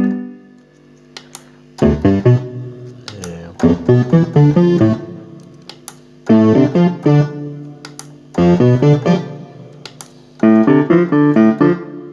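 Electronic keyboard played through an S-Engine sound module on a hammer-action piano patch layered with a second sound behind it. It plays about five short phrases of chords, each a second or so long, with pauses between them.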